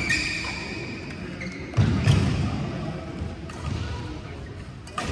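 Badminton play in a large sports hall: sharp racket-on-shuttlecock hits scattered through, with a brief shoe squeak at the start and two heavy thuds of footsteps on the court about two seconds in.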